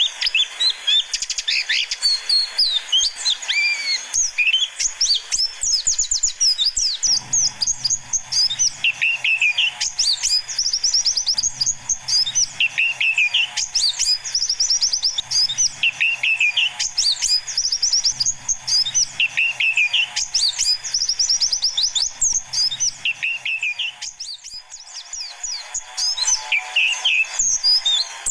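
Pleci (white-eye) birdsong used as a lure call: rapid, high, twittering chirps without a break, with a lower warbling phrase that repeats about every two seconds.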